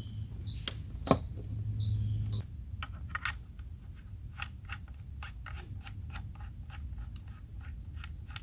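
Hands handling plastic equipment: a low hum with short bursts of hiss that stops about two and a half seconds in, then a string of small irregular clicks and taps.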